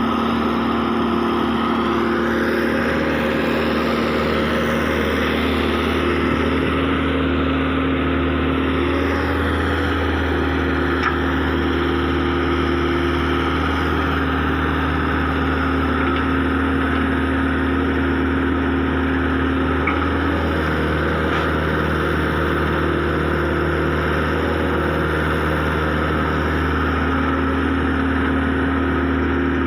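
Excavator's diesel engine running steadily while working, its hum stepping slightly up and down in pitch every few seconds.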